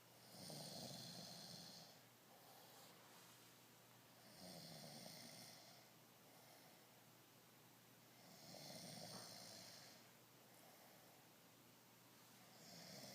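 Snoring: a slow, regular snore about every four seconds, three full snores and a fourth starting near the end, each lasting a second and a half to two seconds.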